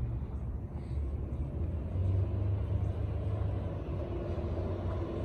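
New Flyer transit bus driving past with a steady low rumble.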